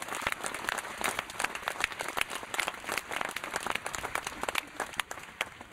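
Crowd applauding: many hands clapping, dying away near the end.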